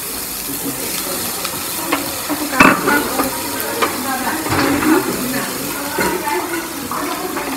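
Wooden spoon stirring and scraping in a stainless steel saucepan, with a few sharp knocks against the pot, the loudest about two and a half seconds in, over a steady hiss.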